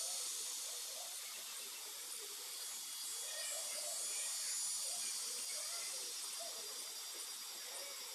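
Steady high-pitched hiss of outdoor background noise, with faint indistinct sounds underneath.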